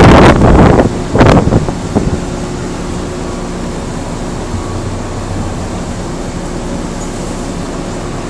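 Interior of a JR Nara Line commuter train: steady rumble and hum of the car running at low speed. In the first second and a half there are a few loud scuffing bursts close to the microphone.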